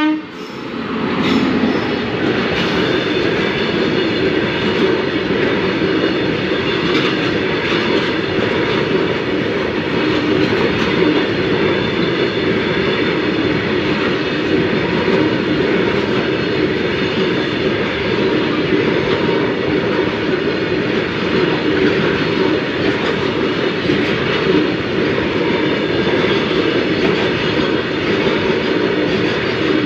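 Freight train passing close by: the locomotive, then a long line of wagons rolling past in a steady, loud rumble of wheels on rail, with the clickety-clack of wheels over the rail joints.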